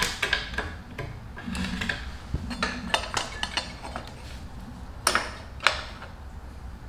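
Light metal clinks and knocks from motorcycle rear-wheel parts being handled and fitted: the wheel, brake disc and caliper. Two sharper knocks come about five seconds in.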